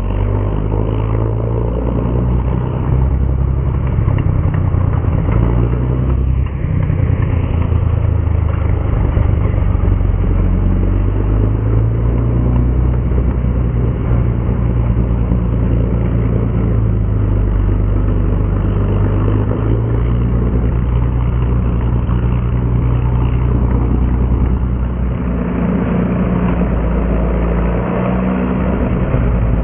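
Char B1 bis heavy tank's engine running steadily as the tank drives along on its tracks.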